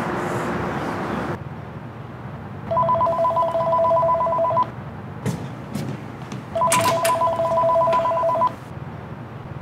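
Cordless phone ringing twice, each ring a warbling two-tone electronic trill about two seconds long.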